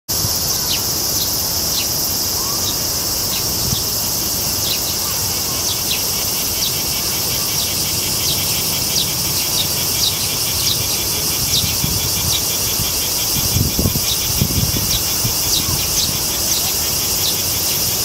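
Steady high-pitched chorus of insects shrilling, with short high chirps repeating about once or twice a second. A few soft low thumps come near the end.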